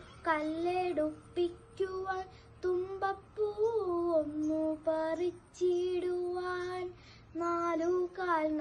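A young girl singing unaccompanied, in phrases of held notes with small pitch glides and short pauses for breath between them.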